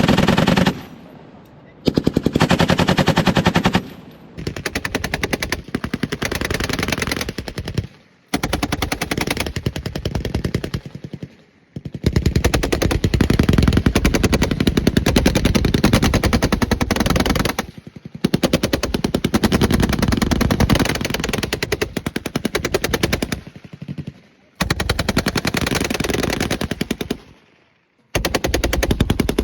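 Machine-gun fire in long bursts of rapid shots, each lasting a few seconds, with short breaks between bursts.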